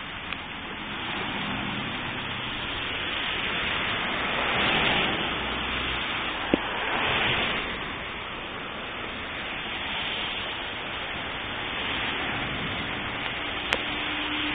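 Steady hiss of rain and hail falling on wet pavement, swelling twice near the middle, with two sharp single ticks, one about halfway through and one near the end.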